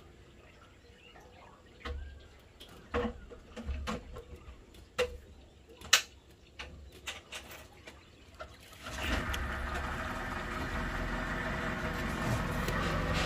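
A few sharp knocks and clicks. About nine seconds in, the steady running of the tour boat's engine comes in suddenly and carries on under way.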